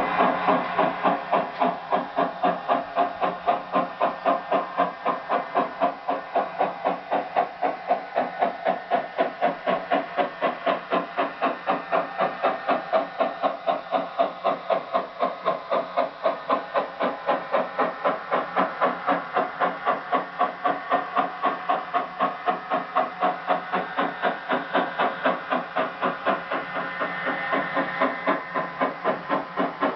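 On3 model narrow-gauge steam locomotive's sound system playing a steady exhaust chuff, about three to four beats a second, with little bass.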